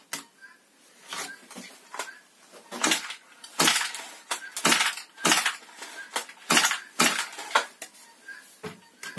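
Stihl MS 170 chainsaw being handled and turned over on a workbench: about a dozen sharp clicks and knocks of its plastic housing and parts, loudest in the middle.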